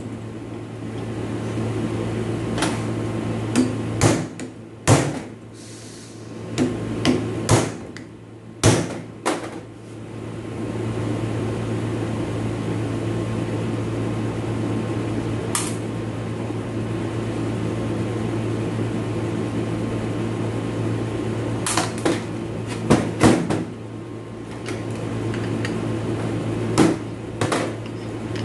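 Scattered metal clinks and knocks as parts of a dismantled automatic transmission's differential are handled, over a steady low hum.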